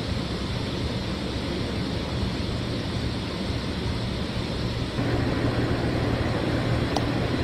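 Steady machinery noise on an offshore drilling rig deck: a low engine-like hum under a broad rush, a little louder from about five seconds in.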